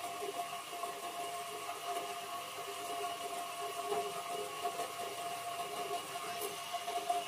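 Steady hum of a homemade wood lathe's electric motor running, with a few fixed tones and no change in speed.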